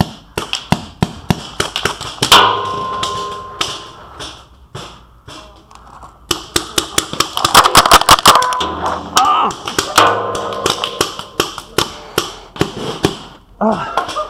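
Paintball markers firing rapid volleys of shots, in dense runs of sharp pops.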